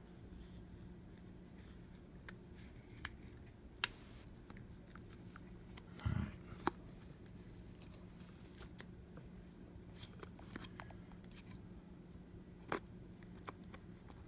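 Faint, scattered small clicks and taps of tools and tiny screws on a phone's internal parts during disassembly, over a steady low hum.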